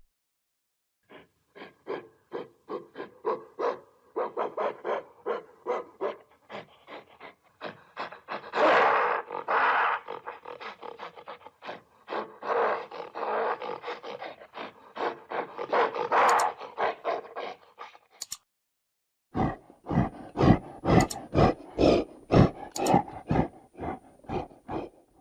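Gorilla vocalizing in a fast, even series of rhythmic grunts, about three or four a second, swelling into louder, longer calls in the middle. After a short break, a second, louder run of rhythmic pulses follows.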